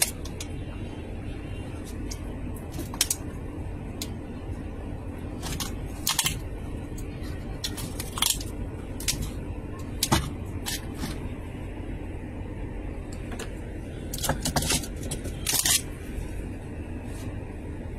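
Plastic-wrapped hotdog packs crinkling and rustling as a hand sorts through them in a freezer chest. The crinkles come in short bursts every second or two, over a steady low hum.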